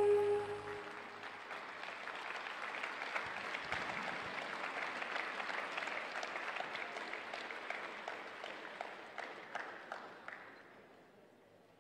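The last held note of the program music dies away in the first second, then an audience applauds with many separate claps, the applause tapering off near the end.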